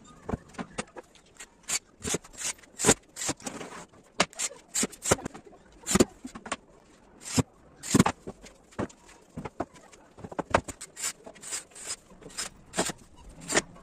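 Irregular series of sharp knocks and clicks with short scrapes, as of wooden boards being handled and worked on in a woodworking job.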